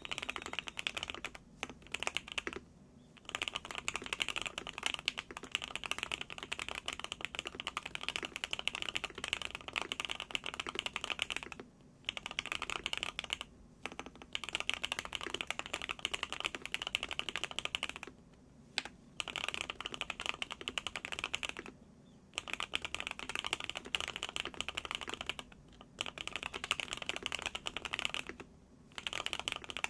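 Continuous fast typing on a Qwertykeys QK65 mechanical keyboard with hand-lubed Gateron Oil King linear switches, a POM plate and CMK keycaps: a dense stream of keystroke clacks. It stops for short pauses of under a second, about seven times.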